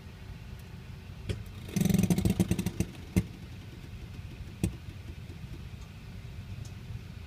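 2007 Mini Cooper S, engine switched off and hot, making its after-shutdown banging noise: a quick burst of rapid metallic knocking about two seconds in, then single sharp knocks about a second and a second and a half apart, over a low steady hum.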